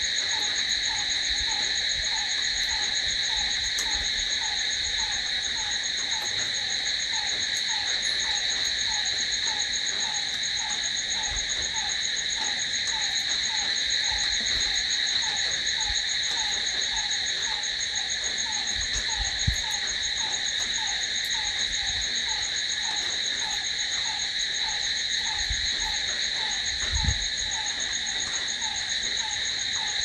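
Dense chorus of crickets trilling steadily. Behind it a lower short note repeats about twice a second, and two soft low thumps come in the second half.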